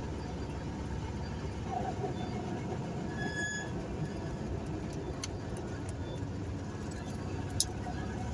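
Steady engine and tyre noise of a car driving along a paved road, with a short high beep about three and a half seconds in and a couple of sharp clicks near the end.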